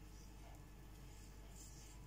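Near silence: a steady low room hum, with a few faint, soft scrapes as a kitchen knife slices around a skewered hot dog against a wooden cutting board.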